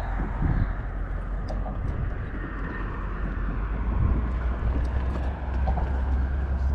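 Wind buffeting the camera microphone: a steady low rumble over an even hiss, with a few faint clicks.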